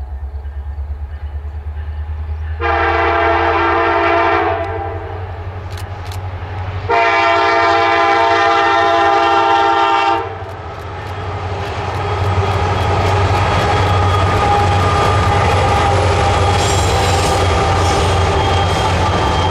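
Freight locomotive horn, a multi-note chord, sounding two long blasts of about two and three seconds over the low hum of approaching diesel locomotives. Then a lead Norfolk Southern EMD SD70ACE and trailing GE diesel units pass close by, their engines and wheels growing steadily louder.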